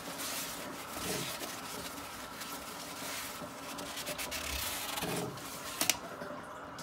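Tissue paper rubbed and wiped against the inside of a ceramic toilet pan, drying it so that any water let by from the flush valve will show. The wiping is an uneven scratchy rubbing in many short strokes, with one sharp click near the end before it stops.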